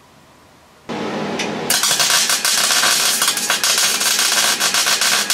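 MIG welder arc crackling and sputtering continuously as a steel repair panel is welded into a van's wheel arch. It starts about a second in and reaches full crackle shortly after.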